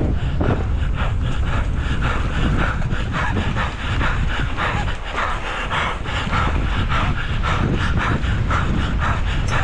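Wind rumbling on the camera microphone of a mountain bike racing down a dirt four-cross track. Tyres chatter over the dirt, and an irregular rasping like hard panting runs throughout, most likely the rider breathing hard at race effort.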